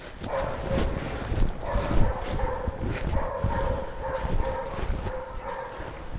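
East Siberian laika barking in a rapid, almost unbroken run, with a short break about a second and a half in, ending shortly before the end.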